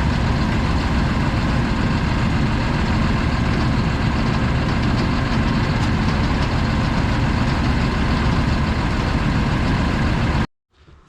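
Hispec 8-cube feed mixer running off a tractor, a loud, steady mechanical rumble and clatter that cuts off abruptly near the end.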